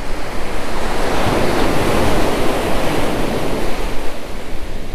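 Ocean surf breaking on a beach: a wave's rush builds and is loudest in the first half, then eases off as it washes out. Wind rumbles on the microphone underneath.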